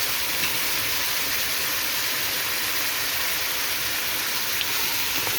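Lamb pieces frying in hot oil in a pot, a steady sizzle.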